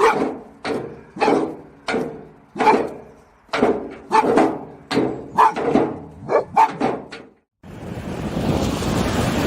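A dog barking over and over, about a dozen short, sharp barks in quick succession, that stop abruptly about three-quarters of the way through.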